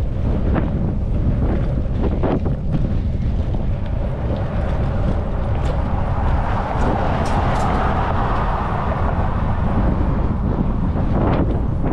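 Wind buffeting the microphone of a moving bicycle rider, a steady low rumble, with a few light clicks. About halfway through, the noise of a passing vehicle swells and fades.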